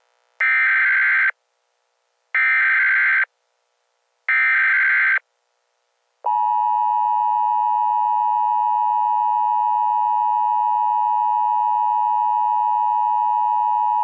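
Emergency Alert System header: three short bursts of the SAME digital data tones, a warbling electronic screech, about a second apart. Then the steady two-tone EAS attention signal sounds for about eight seconds, the alarm tone that comes before the spoken alert.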